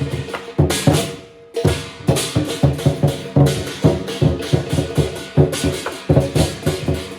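Chinese lion dance percussion ensemble playing: a big drum struck in a fast rhythm over ringing cymbals and gong. There is a brief break about a second in, then the rhythm picks up again.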